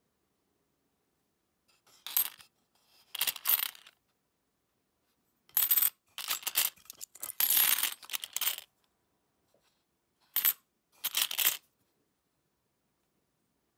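Old Philippine peso coins clinking and jingling against each other as a hand rummages through a pile of them in a wooden box. The clinking comes in several short bursts, the longest lasting about three seconds in the middle.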